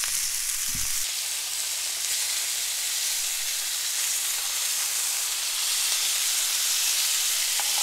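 Bacon-wrapped duck breast poppers sizzling steadily in a hot cast iron skillet on medium-high heat as the bacon crisps, with the pieces being turned with metal tongs. A brief low thump about a second in.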